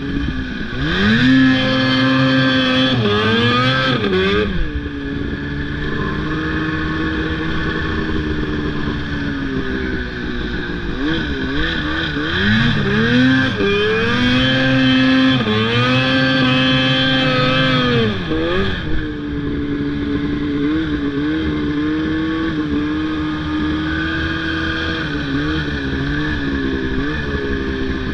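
Snowmobile engine under way in deep snow, revving up and down with the throttle: the revs climb and hold high for a few seconds near the start and again around the middle, dropping back in between, then run lower and steadier near the end with small throttle blips.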